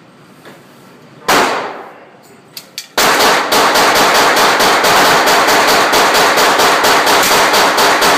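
AR-15 rifle fired in an indoor range, echoing off the walls: a single shot, then after a pause a fast, unbroken string of shots at about seven a second.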